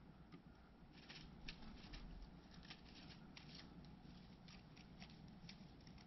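Faint, irregular dry ticks and rustles of a wren, believed to be a Carolina wren, hopping and tugging at dry twigs and dead leaves at its nest on a shelf. The small clicks come in a quick scattered run starting about a second in.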